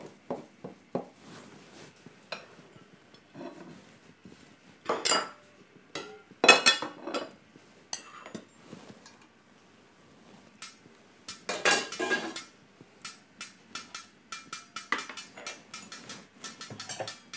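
Wooden spoon knocking and scraping against a stainless-steel pot while stirring stiff pounded yam, in irregular strokes, followed near the end by quick light clinks of small steel bowls.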